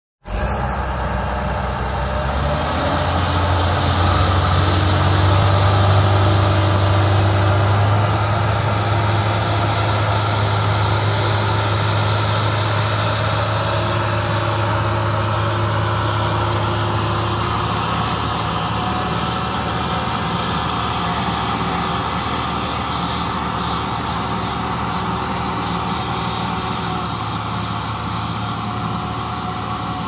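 Heavy diesel engines of a farm tractor and a fertilizer spreader truck working under load as the stuck truck is pulled out of the mud. The engine note climbs over the first few seconds, is loudest about six seconds in, then settles and runs steadily.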